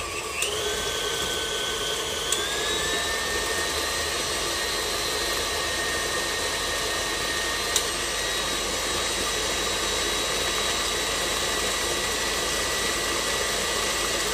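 KitchenAid tilt-head stand mixer motor running steadily, beating eggs into creamed butter and sugar. Its whine steps up in pitch about half a second in and again about two seconds in, with a few sharp clicks.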